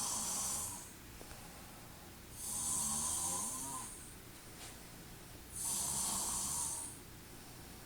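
A person snoring loudly in a steady rhythm. One snore is ending as the clip begins, then two more follow about three seconds apart, each lasting about a second and a half, with quiet breathing between.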